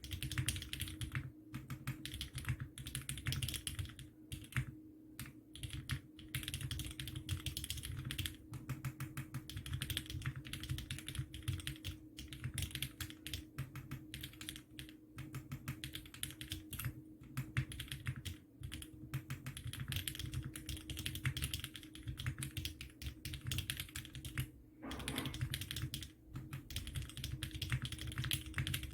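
Continuous fast typing on a Bakeneko 65 custom mechanical keyboard with lubed Cherry MX Hyperglide Black linear switches, an aluminium plate and a soft gummy O-ring mount: a dense stream of keystrokes with a few short pauses.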